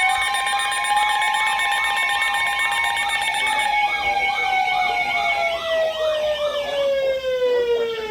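Several siren-type alert tones sounding together: steady tones, a fast up-and-down warble, and slow wailing tones that wind down in pitch near the end. This is an alarm signalling a newly issued flash flood warning.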